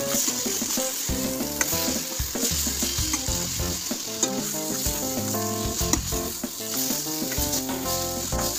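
Chopped spinach sizzling in hot oil and masala in a stainless steel pot while being stirred with a steel spatula, the spatula scraping and clicking against the pot.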